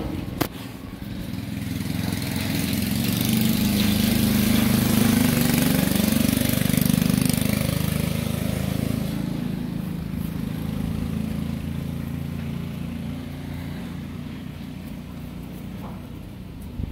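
Motor vehicle engine passing by: it grows louder over several seconds, holds, then slowly fades away.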